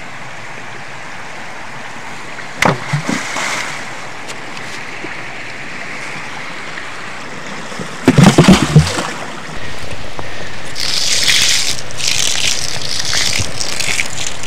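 Rocks dropped into a rushing river, with a splash about two and a half seconds in and a louder cluster of heavy splashes and knocks around eight seconds. From about nine and a half seconds, water poured from a container spatters steadily onto the ground.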